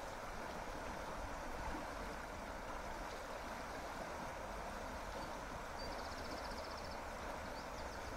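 Small river rushing steadily over shallow rapids, a constant even rush of water.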